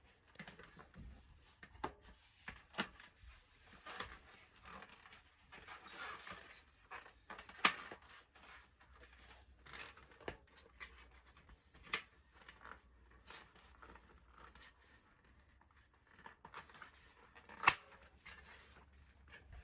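Continental GP5000 tubeless tyre bead being pushed onto a road bike rim by hand: faint rubbing of rubber on the rim with scattered irregular clicks and snaps. The sharpest snap comes near the end.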